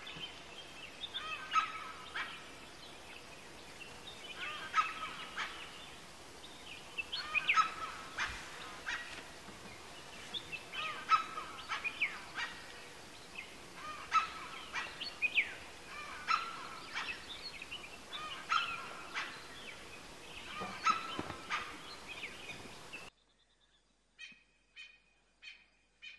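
Birds calling in repeated bursts every second or two. The calls stop abruptly near the end, leaving near quiet with a few faint high chirps.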